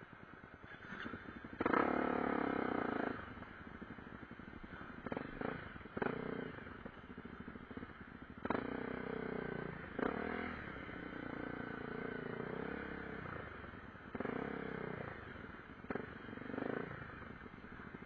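Honda CRF250L's single-cylinder four-stroke engine under way on a trail, the throttle opened and shut again and again so the pitch rises and falls, with three louder bursts of throttle. There are short knocks and rattles from the bike going over bumps.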